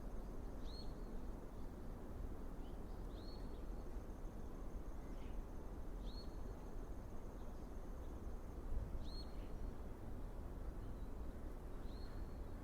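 A bird giving five short, high call notes about three seconds apart, each note rising and then dropping, over a faint, thin, steady insect drone.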